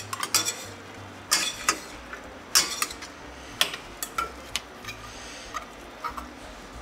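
Metal tongs clicking and clinking against a steel ladle and stainless sauté pan while tagliatelle is twirled into a nest in the ladle: about ten sharp, uneven metallic strikes.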